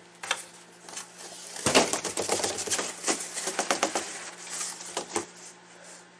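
Large cardboard shipping box being handled and tipped, with paper packing inside rustling and crackling. A few light scrapes at first, then a dense run of crackling rustle from about two seconds in until about five seconds in.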